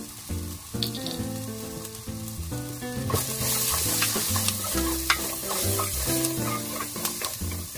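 Food sizzling in a frying pan as it is stirred, with a spatula scraping and clicking against the pan. The sizzle gets much louder about three seconds in, and the clicks come every second or so after that.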